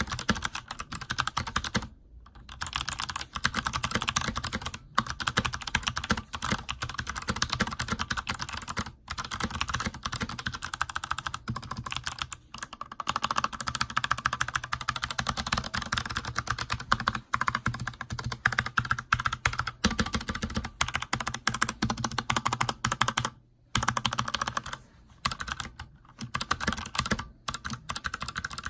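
Continuous typing on an Anne Pro 2 mechanical keyboard with clicky Kailh Box White switches: a fast run of sharp key clicks, with brief pauses about two seconds in and again near the end.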